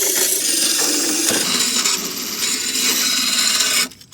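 Power drill spinning a spring-tensioned sharpening-stone attachment against a steel lawnmower blade: a loud, steady grinding rasp that stops suddenly near the end, followed by a short click.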